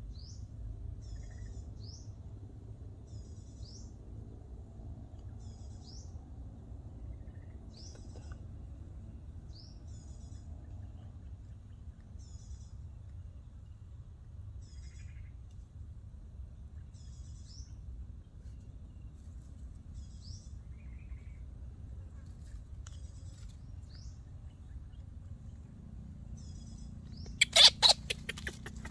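A bird calls over and over in a steady low background of the outdoors, a short high buzzy note followed by a thin upward-sweeping whistle, repeating every second or two. Near the end comes a short, loud burst of crackling clicks.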